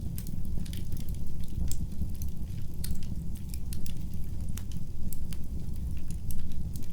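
Wood fire in a fireplace crackling, with irregular sharp pops and snaps over a steady low rumble of the flames.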